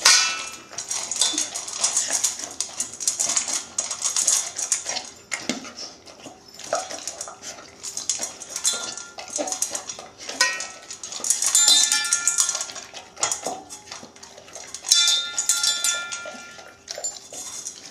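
Puppy eating dry kibble very fast from a stainless steel bowl: kibble rattling and clicking against the metal, with the bowl clinking and ringing in several louder bursts.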